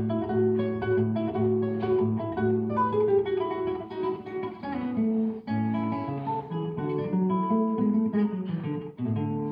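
Solo acoustic guitar playing a gato, an Argentine folk dance: a plucked melody over bass notes, with a brief break about nine seconds in.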